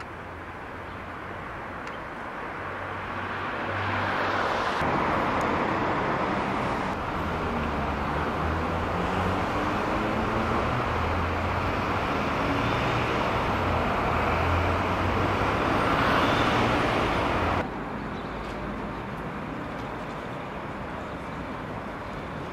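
City street traffic noise: a steady hum and rumble of passing vehicles that builds over the first few seconds, holds, then drops suddenly to a quieter background hum about three-quarters of the way through.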